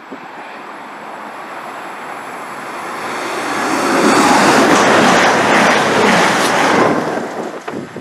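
CrossCountry Voyager diesel multiple unit coming through at speed. It builds from a distant hiss with faint high singing tones to a loud rush at its closest, about four to seven seconds in, then falls away near the end.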